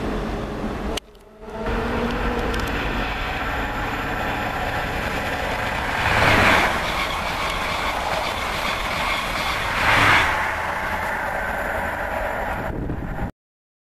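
High Speed Train of Mark 3 coaches passing through a station at speed: steady rumble of wheels on rail that swells twice, about six and ten seconds in. The sound cuts off abruptly near the end.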